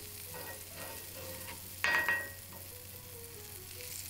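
Margarine melting and sizzling softly on a hot metal sizzling plate while a wooden spatula spreads it across the plate, with one louder scrape about two seconds in.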